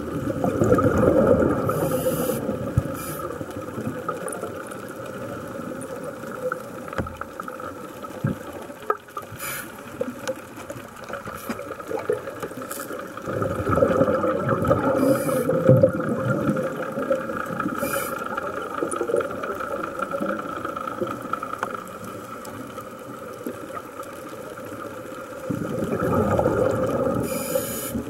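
Underwater water noise with a steady hum running underneath. A rushing, gurgling wash swells three times: near the start, in the middle, and near the end.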